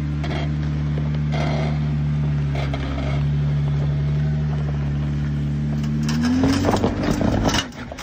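Jeep Wrangler Rubicon engine running low and steady as the Jeep crawls up a rock ledge, then the revs rise about six seconds in, with a loud burst of rough noise that cuts off shortly before the end.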